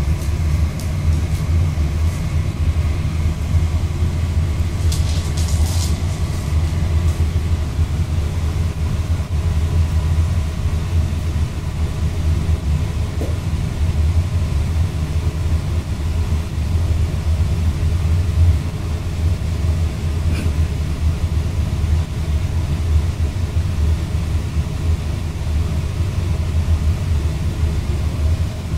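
A steady low rumble with a hum, with a brief higher rasp about five seconds in.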